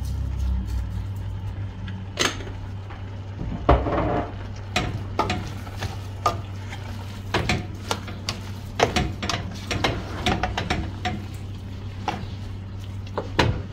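A kitchen utensil clinking, knocking and scraping against a cooking pot as the stew is worked, in irregular clicks. A steady low hum runs underneath.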